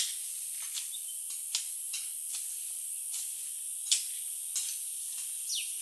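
Steady high-pitched hiss, with scattered sharp clicks and ticks and a short falling whistle near the end.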